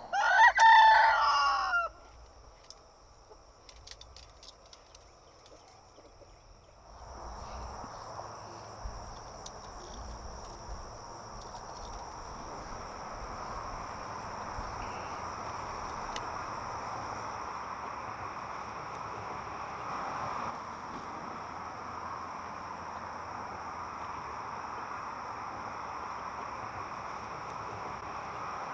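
A rooster crows once, loud and about two seconds long, at the start. After a quiet spell, a steady outdoor background of hiss and a high, even insect drone sets in about seven seconds in.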